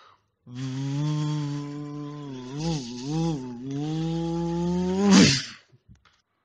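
A buzzing engine sound for an arriving vehicle: it holds steady, blips up and down twice, then revs up to a loud peak near the end and cuts off.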